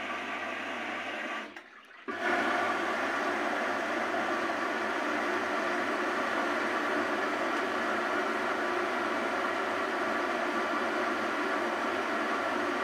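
Front-loading washing machine on a 60 °C cotton wash, its drum tumbling a soaked blanket with water sloshing and a steady motor hum. The sound drops out for about half a second near the two-second mark, then comes back louder and steady.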